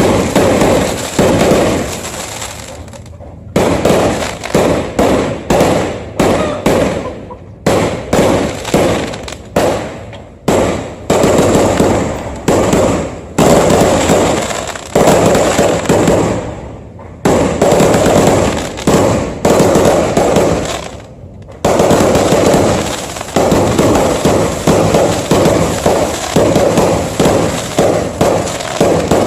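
Fireworks going off in rapid, continuous volleys of bangs and crackles, many a second, broken by a few short lulls.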